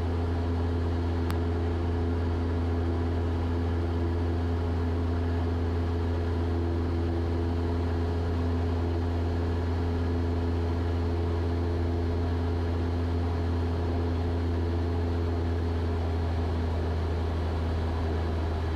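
Cessna 172's piston engine and propeller droning steadily in cruise, heard inside the cabin.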